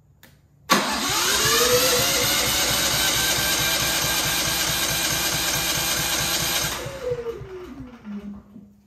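Genmax GM9000iED inverter generator being electric-started: the starter cranks the engine for about six seconds with a rising whine and a fast, regular chugging, but the engine does not catch. Near the end the whine falls away as cranking stops.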